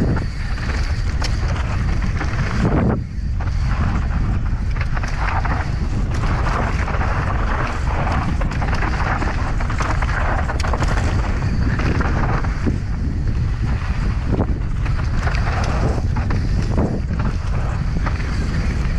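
Wind buffeting the microphone over mountain bike tyres rolling on a dirt trail, with frequent knocks and rattles from the bike over bumps.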